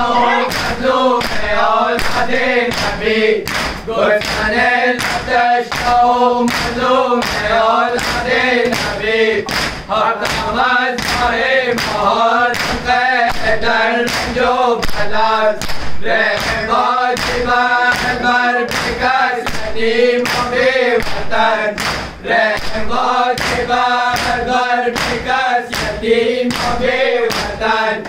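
A group of men chanting a noha in chorus while beating their chests in unison (matam), the hand strikes landing on the beat about two times a second.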